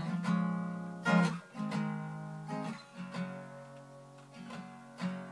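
Acoustic guitar strummed in a slow pattern of chords that ring on between strokes, the loudest strum about a second in.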